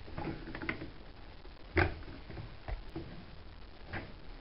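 Scattered clicks and knocks of plastic and metal as a flathead screwdriver and hands work the sump hose and its clip off a washing machine's plastic drain pump, with one sharper knock about two seconds in.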